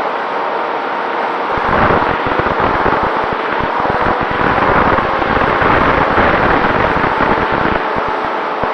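Wind rushing and buffeting on the microphone of an FPV flying wing in flight, over a steady hiss. The buffeting is heaviest from about a second and a half in until near the end.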